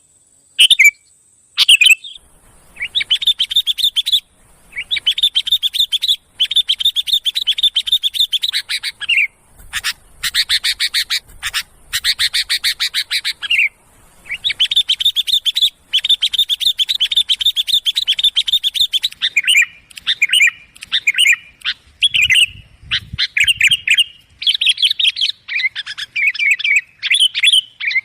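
Sooty-headed bulbul (kutilang) calls from a lure recording: loud, fast chattering runs of notes in bursts of one to two seconds with short breaks, giving way to shorter, choppier phrases in the last third.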